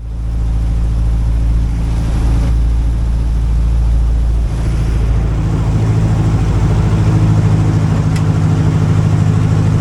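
Bush plane's Titan CC340 piston engine and propeller running steadily, with a heavy low wind rumble that eases about four and a half seconds in.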